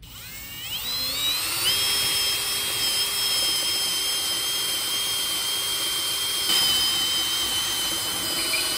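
Cordless drill spinning up over the first second or two, then running at a steady high whine as its bit bores a screw hole through stacked wooden boards, with a brief louder burst about six and a half seconds in.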